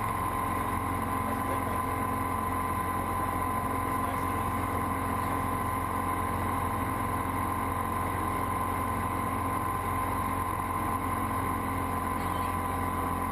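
Light single-engine airplane's engine and propeller running steadily in cruise, heard inside the cockpit as an even drone with a steady tone.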